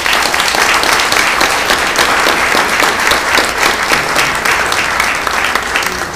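Audience applauding: loud, steady clapping from a room full of seated guests, easing slightly near the end.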